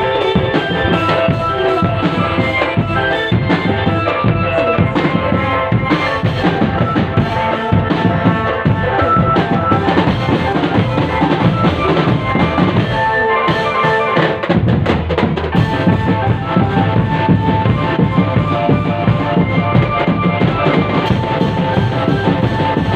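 Indonesian street drum band playing: drums and bass drum beating steadily under a melody of held notes, with a brief break in the music about 14 seconds in.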